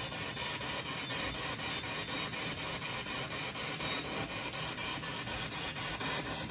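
Steady static-like hiss, like white noise, with no distinct events in it.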